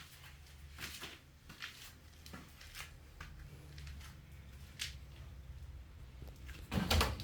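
Scattered light clicks and rustles of handling, over a low steady hum, with a louder knock and clatter near the end.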